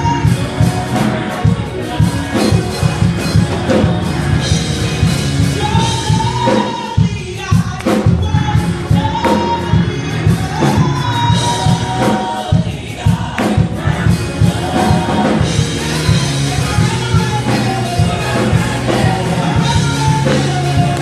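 Gospel praise team singing live: a lead singer over a group of backing singers, with instrumental accompaniment keeping a steady beat.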